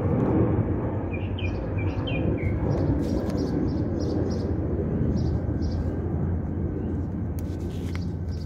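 Small birds chirping, with short chirps clustered about a second or two in and repeating higher chirps after that, over a steady rumble of wind on the microphone.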